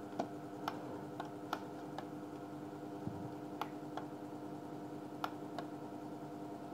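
About nine sharp, irregularly spaced clicks from working the computer's controls, over a steady electrical hum with a constant low tone.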